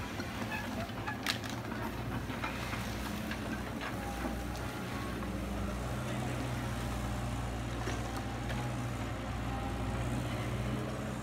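Kobelco hydraulic excavator's diesel engine running with a steady low drone, with a sharp click about a second in.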